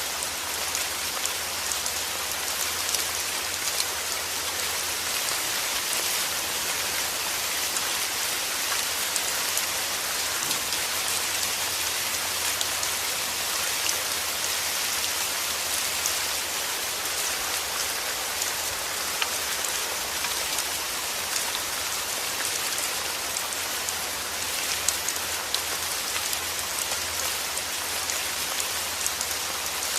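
Heavy rain falling steadily, a dense hiss of many drops pattering on a surface.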